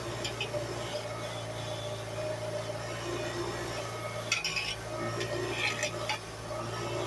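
Cheap bench grinder's motor humming steadily while a small crescent wrench is pressed against the spinning wheel, giving short scratchy, clinking contacts, the strongest about four and a half seconds in and again near six seconds.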